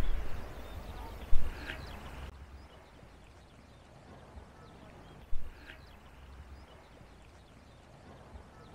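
Wind buffeting the microphone for about two seconds, then a much quieter stretch of open-air ambience with a few faint short chirps and two brief knocks.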